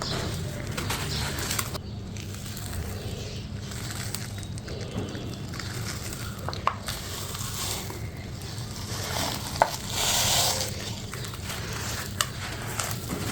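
A crunchy crumble block being crushed and broken apart: scattered crackles and small crunches, with a longer crunch about ten seconds in.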